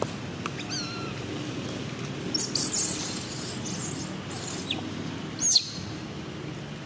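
Baby long-tailed macaque screaming in short, shrill cries that fall in pitch, several times, the loudest about five and a half seconds in.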